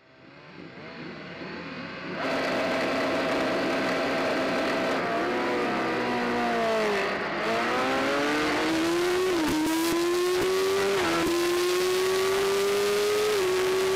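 BMW S1000RR inline-four superbike engine heard from on board, held at steady high revs on the start grid. The revs sag as the clutch is let out for the launch, then climb hard through three quick upshifts.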